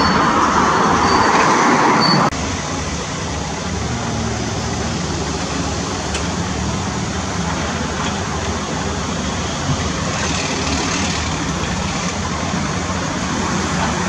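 Doosan DX225LC demolition excavator at work: for about the first two seconds a loud, rough crunching of masonry and rubble, which cuts off suddenly. After that a steady low diesel rumble mixed with street traffic noise.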